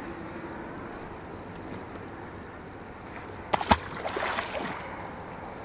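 A released pike drops into the pond at the water's edge about three and a half seconds in: a sharp smack on the water, then a brief splash. Before that there is only faint steady background noise.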